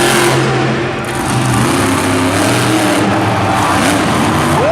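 Monster truck engine revving, its pitch rising and falling several times.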